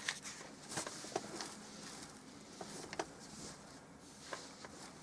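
A handful of faint, irregularly spaced clicks and light taps over quiet room tone.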